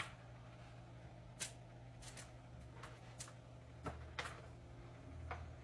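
Quiet room tone with a faint steady low hum and a handful of soft, scattered clicks.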